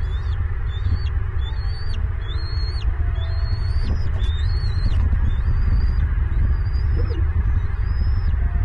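A bird calling over and over: a run of about ten high, thin calls, each rising, held briefly, then dropping, over a steady low rumble.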